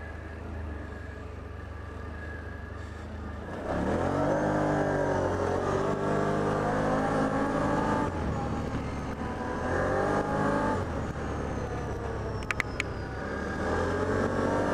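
ATV engine idling with a low steady hum, then pulling away about four seconds in and running along a gravel trail. Its pitch climbs and eases off several times as the rider speeds up and backs off the throttle. A couple of sharp clicks come near the end.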